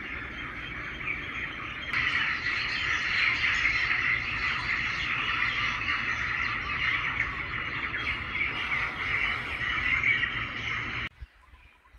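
Dense, steady outdoor chorus of chirping birds and insects. It gets louder about two seconds in and cuts off abruptly near the end.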